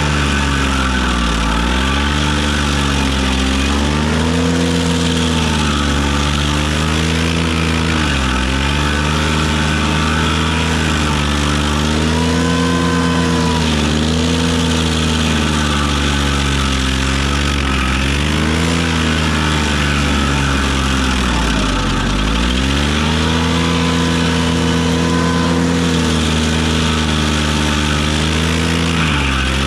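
Ventrac 4520Z compact tractor's engine running hard, its pitch dipping and recovering again and again as the machine takes load. A brief higher whine rises over it twice.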